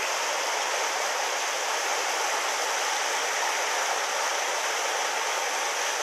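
A small mountain stream's cascade pouring over rocks into a pool: a steady rush of water.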